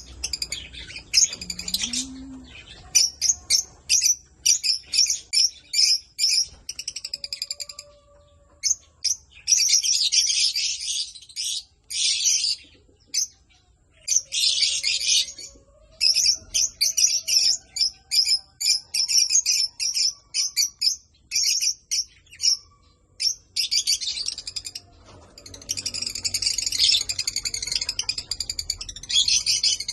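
Parrots chirping and chattering in rapid, high-pitched runs broken by short pauses.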